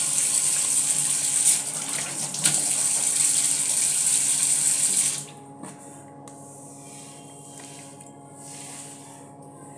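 Tap water running steadily, then shut off about five seconds in. Only faint handling sounds follow.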